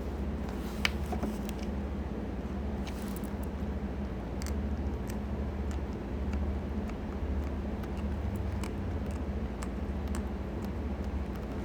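Airbrush air compressor running with a steady low hum. Scattered small clicks and taps sound over it, the sharpest about a second in.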